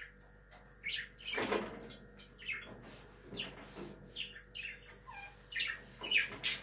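A small bird chirping repeatedly in short high calls, about one or two a second.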